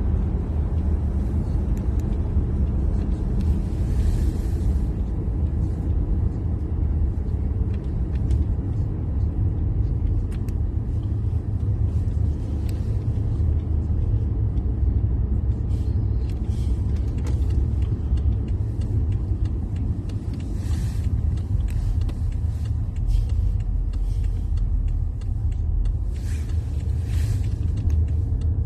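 Steady low rumble of a moving vehicle, with brief hissy swells now and then.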